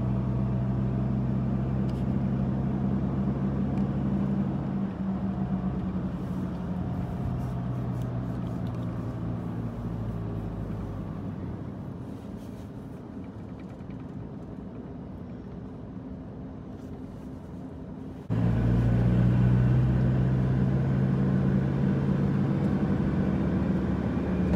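Car driving, heard from inside the cabin: a steady low engine hum over road noise. The hum fades and grows quieter through the middle, then comes back suddenly at full level about three-quarters of the way through.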